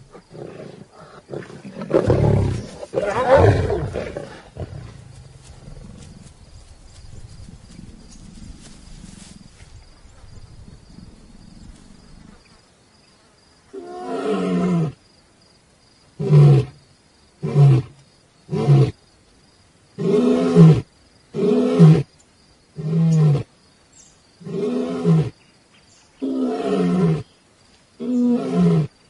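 Male lion roaring: about a dozen deep calls, each under a second, spaced about a second and a half apart, starting about halfway through. Before them, a louder rumble comes about two to four seconds in, then a quieter stretch.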